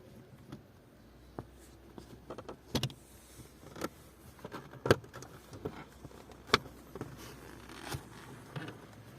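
Scattered clicks and knocks of parts being handled while working on a Ford Focus MK1 gear lever, irregularly spaced, the two sharpest about five and six and a half seconds in.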